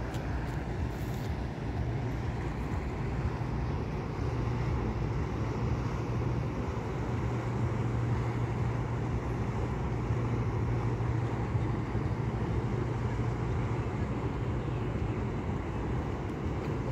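Steady low engine drone of a river passenger boat under way, with the rush of water and wind.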